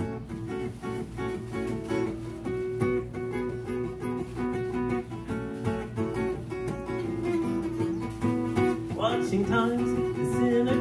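Acoustic guitar played live in an instrumental passage of a song: strummed, ringing chords with steady held notes. About nine seconds in, a voice comes in with a rising sung note.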